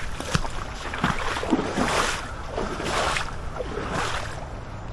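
Water sloshing around the legs of someone wading through swamp water, with a swell of sloshing about once a second as each step pushes through.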